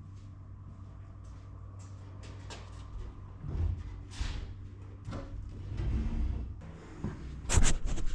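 Scattered knocks, scrapes and rattles of things being moved and handled in a garage, over a low steady hum, with a louder cluster of knocks near the end.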